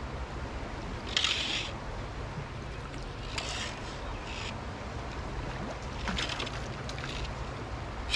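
Trout stream flowing steadily, with several short splashes of water, the loudest about a second in.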